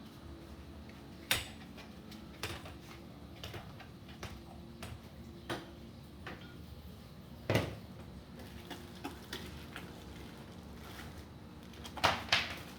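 Hard objects being handled and set down: scattered clicks and knocks, the loudest about a second in, mid-way, and a close pair near the end, over a faint steady hum.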